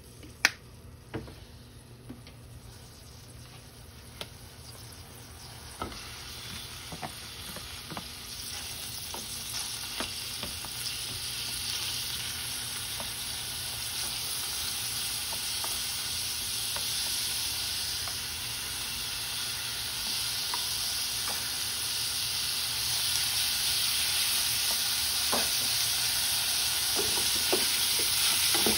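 Sliced pork frying in sesame oil in an aluminium yukihira pan, the sizzle setting in a few seconds in and growing steadily louder, with cooking chopsticks ticking and scraping against the pan as the meat is stirred. A few sharp knocks come before the sizzle, the loudest about half a second in.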